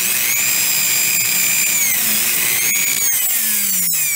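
A Dremel 4000's small high-speed brushed motor running with its case open, the carbon brushes held against the commutator by hand to make it run: a steady high whine with a few sharp clicks. The pitch dips briefly about halfway, and the motor starts to spin down near the end. The motor had been running rough and quitting because a brush stuck in its guide and was not making good contact.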